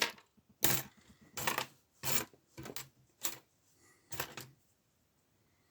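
Small metal lockpicking tools clinking and rattling in about seven short bursts, stopping about four and a half seconds in.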